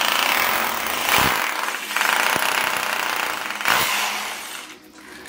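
Makita HR2630J SDS-plus rotary hammer drilling into a wall in hammer-drill mode: a fast hammering rattle over the motor, easing off briefly twice, and stopping near the end.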